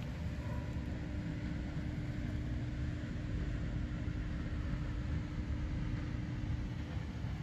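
Steady low rumble of outdoor background noise, with a faint constant hum running under it.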